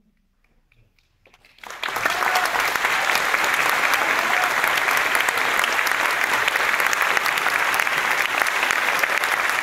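A quiet pause with a few faint first claps, then audience applause starts suddenly about a second and a half in and keeps up steadily.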